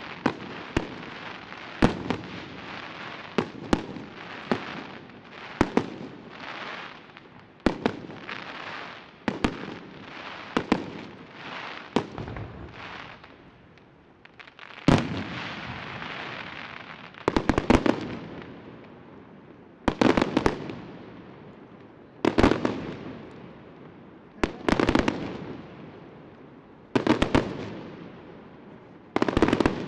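Aerial firework shells bursting in a close string of sharp bangs with crackle. From about halfway, louder clusters of rapid bangs come every two to three seconds, each trailing off in a long fading rumble.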